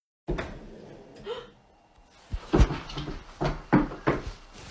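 Wooden bedside drawer being handled: after a moment of dead silence at the start, a run of sharp knocks and bumps follows about every half second through the second half.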